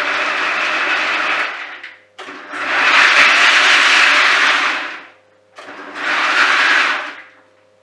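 Kenwood kitchen machine's chopper attachment running, chopping walnuts roughly. The motor stops about a second and a half in, then runs again twice: a burst of about three seconds and a shorter one of about a second and a half, with brief pauses between.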